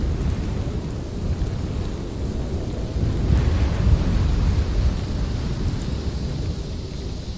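Strong blizzard wind gusting, a deep buffeting rumble with a hiss above it that swells about three seconds in and eases off near the end.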